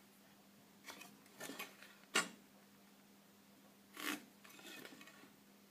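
Pencil scratching lines onto a pine strip along the blade of a try square, in several short, faint strokes, with a sharper click about two seconds in as the square or pencil is shifted.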